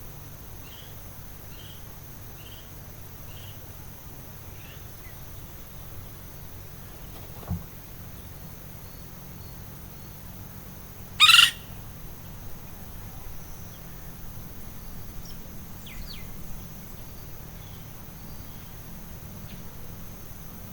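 Tropical forest birds calling over a steady high insect hiss: a run of about six short evenly spaced chirps in the first few seconds, a few fainter calls later on, and one loud, short harsh sound about 11 seconds in. A soft thump comes about 7.5 seconds in.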